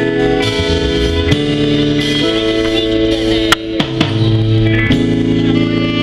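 Instrumental band music with guitar and drums, held chords changing every second or so. Just past halfway there is a short break with a few sharp hits before the music resumes.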